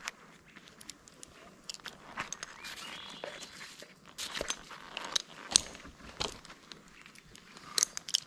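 Irregular crunching and sharp snapping of twigs and woody debris, with a few louder cracks about four and a half and five and a half seconds in.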